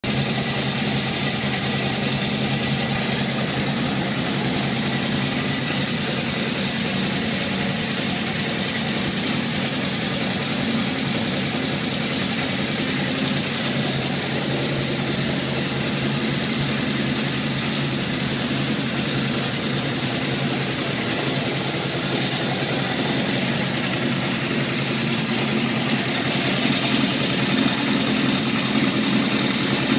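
1978 Honda CB750F's inline-four engine idling steadily with a rattle, a little louder near the end. The owner believes the rattle is most likely worn crankshaft bearings, after the engine ran on low oil pressure until it stalled.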